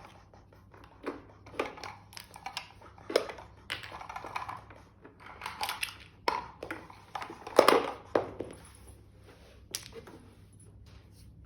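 Small toy cubes clattering as they are handled and set down: a string of irregular clicks and knocks, the loudest about two-thirds of the way through.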